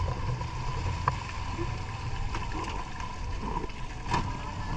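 Mercury outboard motor running, with a steady low rumble, wind and water noise. A light knock comes about a second in and another near the end.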